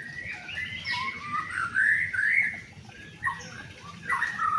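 White-rumped shama (murai batu) singing a string of quick, varied whistled phrases that slide up and down in pitch.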